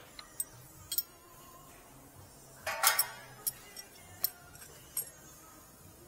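Metal tools clicking and clinking against a car's rear brake caliper as pliers work at it: separate sharp clicks, with the loudest cluster, briefly ringing, about halfway through.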